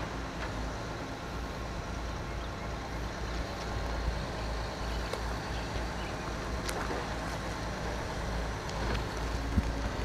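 Distant approaching diesel locomotive running: a steady low rumble, with a few faint clicks.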